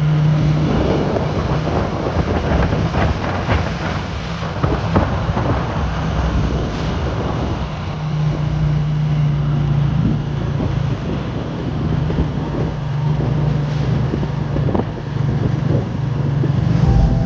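Vehicle engine running with a steady low hum, with wind buffeting the microphone and scattered knocks and rattles.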